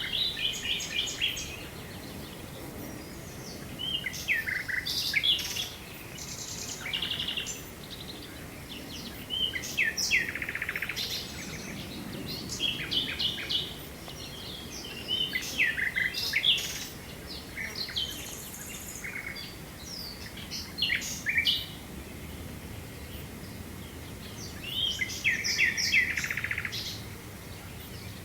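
Wild songbirds singing: short bursts of rapid, high chirping phrases every few seconds, over a steady low background noise of open country.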